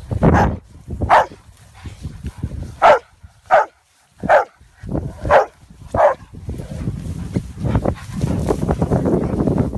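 A dog barks about seven times in the first six seconds, in short separate barks. From about seven seconds in there is a steady rustling, like dogs pushing through long grass.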